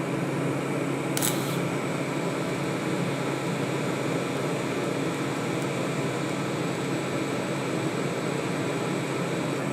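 TIG welder running steadily, a continuous hum and hiss as weld is built up on a cast steel engine part; the metal takes the weld like steel rather than cast iron. A short sharp click about a second in.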